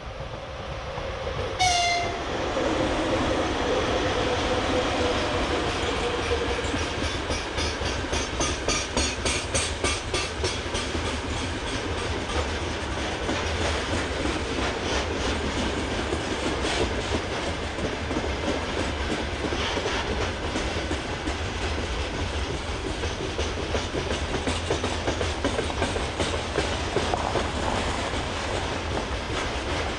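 VL80s electric freight locomotive passing close by: a short horn toot about two seconds in, then the steady rumble and clickety-clack of the freight wagons' wheels rolling past.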